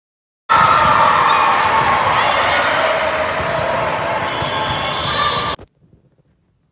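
Live game sound of an indoor volleyball rally: players' voices and the ball being struck on court. It starts suddenly about half a second in and cuts off abruptly about five and a half seconds in.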